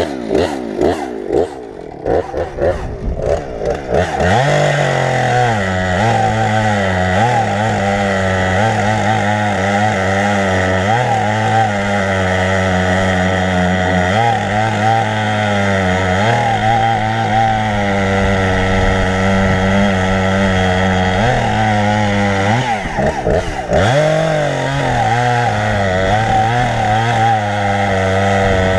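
Husqvarna 455 Rancher two-stroke chainsaw revving up about four seconds in and cutting through a log. Its engine note wavers and sags under load, eases off briefly about 23 seconds in, then revs back into the cut.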